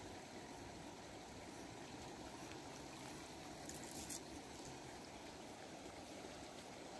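Shallow river water flowing steadily over stones, a faint even rush, with a brief sharper hiss about four seconds in.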